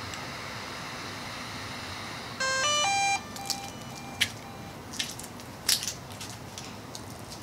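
DJI Mavic 2 Pro drone powering on: its start-up chime, a quick run of electronic notes lasting under a second, comes about two and a half seconds in, followed by a few faint beeps. After it come a few light crackling footfalls.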